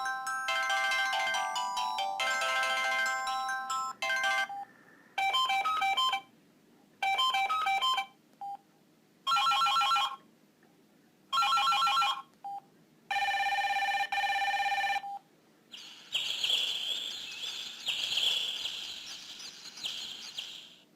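Samsung SGH-E330 mobile phone playing ringtones through its small speaker: a many-note electronic melody stops about four seconds in, followed by a run of short electronic tone bursts with pauses between them. A busier, hissier warbling tune plays over the last few seconds.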